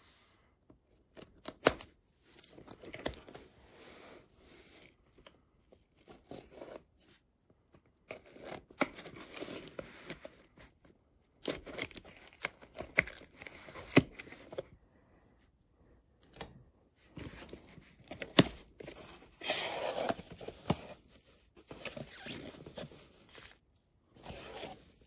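Packing tape on a cardboard shipping box being slit with a box cutter and torn away, then the cardboard flaps pulled open. It comes in irregular bursts of ripping and scraping with sharp clicks and short pauses between.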